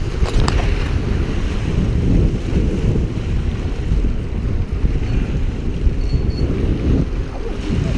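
Wind buffeting the microphone over waves washing and splashing against jetty rocks, a steady low noise throughout, with a single light click about half a second in.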